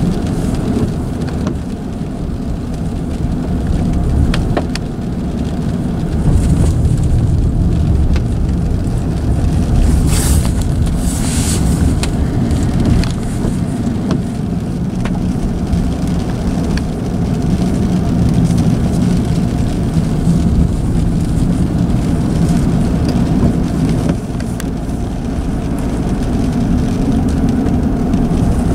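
Car driving, heard from inside the cabin: a steady low rumble of engine and tyres on a wet road, with rain on the car. A brief hiss comes about ten seconds in.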